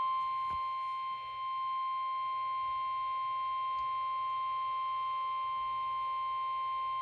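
NOAA Weather Radio warning alarm tone, a single steady high tone of about 1050 Hz with faint overtones. It is the alert signal that comes before a spoken severe thunderstorm warning.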